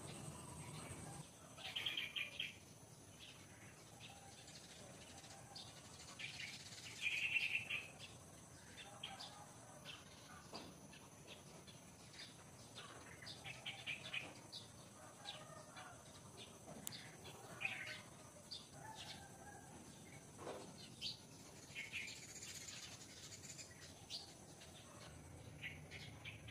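Forest ambience of small birds chirping in short, scattered calls, the louder ones about two and seven seconds in, over a faint steady high-pitched hum.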